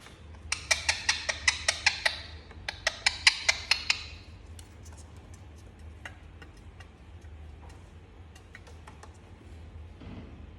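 Indian ringneck parrot making rapid sharp clicking sounds: two quick runs of about seven clicks a second, each lasting a second or two, in the first four seconds, then only a few scattered faint clicks.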